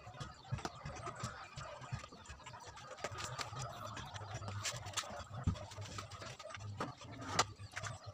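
Faint background with scattered light knocks and clicks as a wooden speaker box is handled and set on a metal tripod stand, the sharpest knock near the end.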